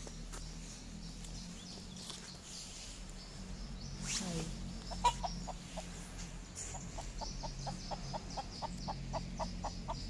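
Rooster clucking in the undergrowth: a run of short repeated clucks that starts about five seconds in and gets faster, from about three to about five a second.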